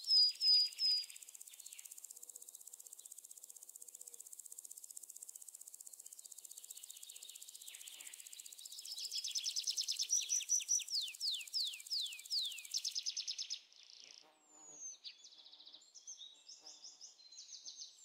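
Birds chirping over a steady high insect drone. From about nine to thirteen seconds in comes a quick run of falling whistled notes, several a second. After that the drone stops and scattered chirps go on.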